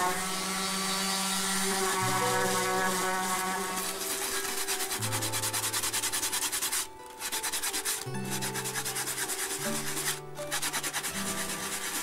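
Sanding a wooden gusli board. An electric orbital sander hisses on the wood for the first few seconds. Then come quick back-and-forth strokes of sandpaper by hand, broken by two short pauses, over quiet background music with low held notes.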